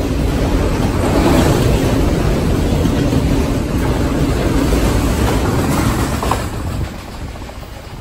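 Freight train's autorack cars rolling past, the steady sound of steel wheels on rail. It drops off sharply about seven seconds in as the last cars go by.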